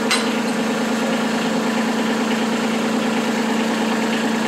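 Kubota B2301 compact tractor's three-cylinder diesel engine idling with a steady hum, with one sharp click just as it begins.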